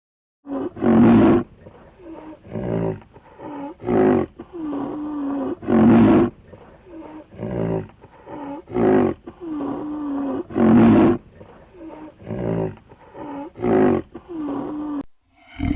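A big cat roaring in a long series of calls: six loud roars about every two to three seconds, with quieter grunting calls between them. The series stops just before the end.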